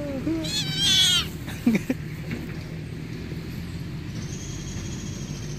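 Kitten crying in distress as a dog bites it: a loud, shrill, wavering squeal about a second in, then a short yelp.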